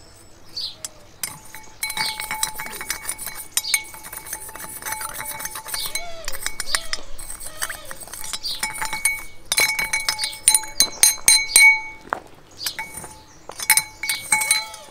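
Metal spoon stirring alum solution in a glass bowl, clinking repeatedly against the glass and the submerged aluminium cylinder head, with the bowl ringing briefly after the strikes. The clinks come thickest about two-thirds of the way through.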